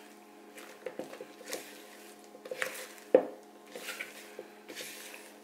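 Thick cake batter being folded with a spatula in a mixing bowl: soft, irregular squelches and scrapes with light knocks of the spatula against the bowl, the loudest knock about three seconds in.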